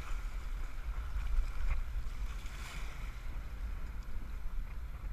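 Turbulent river water rushing and splashing around a sit-on-top kayak's hull in the rough water below a tube chute, over a steady low rumble.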